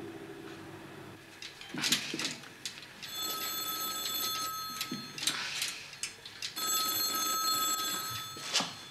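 Telephone bell ringing twice, a long ring and then a shorter one, calling for an answer. Sharp clicks and knocks of handled metal parts sound around it.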